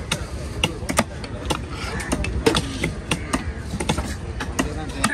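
Large knife chopping trevally flesh into pieces on a wooden log chopping block: quick, irregular knocks, about four a second, over a low background rumble.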